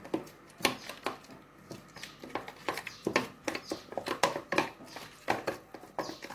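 A spoon stirring wet henna paste in a plastic tub, clicking and scraping against the sides in an irregular run of short strokes, about two or three a second.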